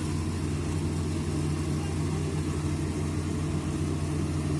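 Kubota rice combine harvester's diesel engine running steadily while it cuts and threshes rice, an even low hum at constant pitch.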